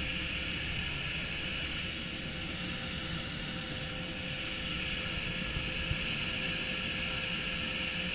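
HMS Ystad, a Norrköping-class fast attack craft, running under way: the steady whine and rumble of its gas-turbine propulsion, mixed with the rush of the wake along the hull and wind on the microphone.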